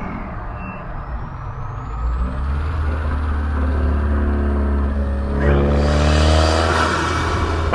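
Subaru WRX's turbocharged flat-four engine pulling under throttle, its note climbing in pitch. A thin, high turbo whistle runs above it. About two-thirds of the way in, a rush of turbo hiss builds, then drops off sharply near the end.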